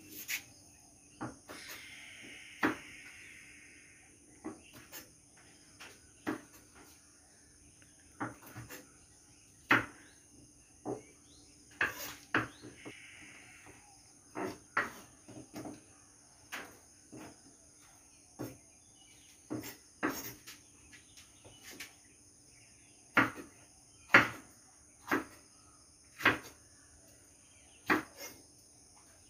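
Kitchen knife chopping vegetables on a wooden cutting board: irregular sharp knocks of the blade striking the board, roughly one a second.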